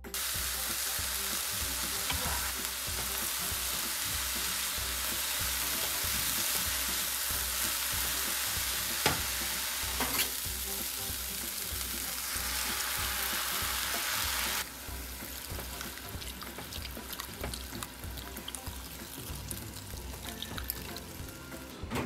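Food sizzling in a frying pan, with a couple of sharp utensil clicks about nine and ten seconds in. The sizzle cuts off suddenly about fifteen seconds in, leaving quieter clicks and faint crackling.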